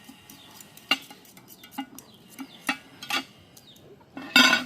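Kitchen utensils and dishes clinking and knocking, a scattering of separate clicks and then a louder clatter near the end.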